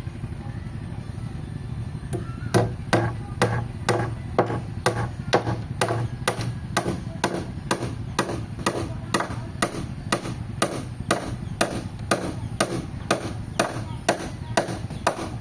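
Regular strikes of a hand tool on wood, about two to three a second, starting a couple of seconds in, over a low steady hum.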